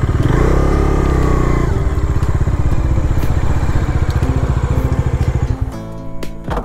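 Single-cylinder motorcycle engine revving up and back down about a second in, then running at low speed as the bike rolls across grass. The engine cuts off suddenly near the end.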